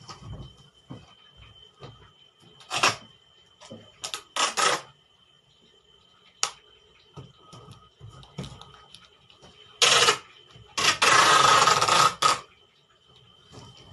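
Packing tape being pulled off the roll and pressed onto a cardboard box: several short rasping pulls, then one long pull of about a second and a half near the end, with light knocks of hands on the cardboard between.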